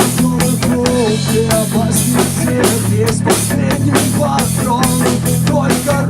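Rock band playing an instrumental passage with no vocals. A drum kit beats steadily under sustained bass and guitar, and a melody line above them bends up and down in pitch.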